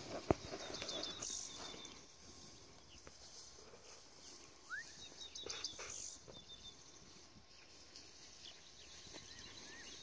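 Outdoor field sound: a low brushing haze as someone walks through tall grass, with scattered short high bird chirps and a sharp click just after the start.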